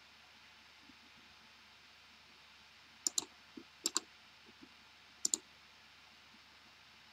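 Computer mouse button clicks: three quick pairs of sharp clicks between about three and five and a half seconds in, over faint room hiss.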